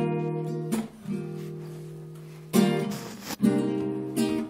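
Acoustic guitar playing strummed chords, a new chord struck sharply about once a second and each left to ring and fade.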